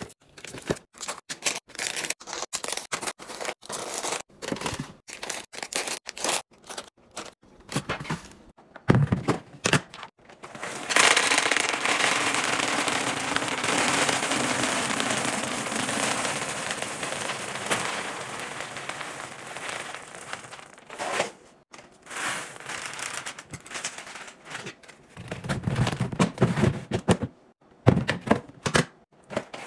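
Dry Crunch Berries cereal pouring from its box into a clear plastic cereal container: a steady rushing rattle for about ten seconds. Before it come rapid clicks and crinkles of foil drink pouches and squeeze pouches being packed into a fridge drawer. After it comes a clatter of handling as the container's lid is fitted.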